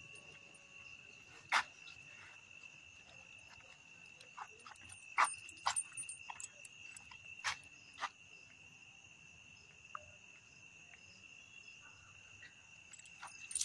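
Night insects trilling steadily at one high pitch throughout, with a few short metallic clicks and clinks from the dog's chain leash scattered through it.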